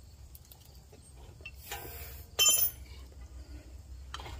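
Steel hand tools being handled at a brake caliper: a short rustle, then one sharp metallic clink with a brief ring about two and a half seconds in.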